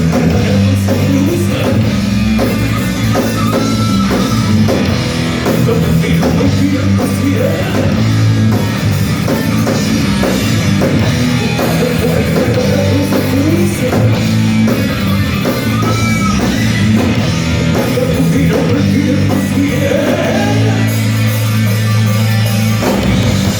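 Thrash metal band playing live: electric guitars, bass and drum kit at full volume, settling into a long held low chord near the end.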